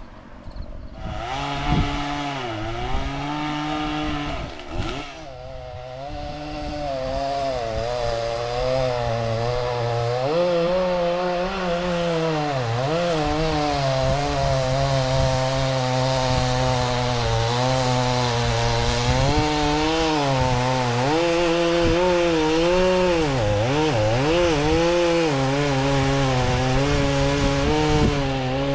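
Chainsaw starting up about a second in and running at high revs, its pitch dipping and recovering several times as it loads down cutting into dead ash wood.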